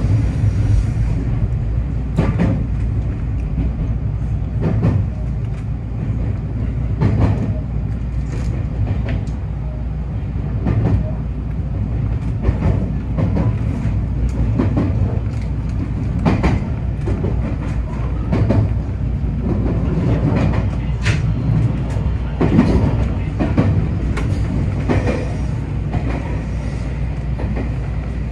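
JR West 223 series electric train running with steady rail noise and a sharp wheel clack about every two seconds, as it runs over rail joints and points on the approach to its terminal.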